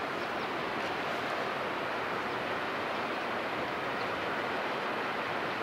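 Steady rushing wash of water from a large container ship passing close by, its bow wave breaking along the hull.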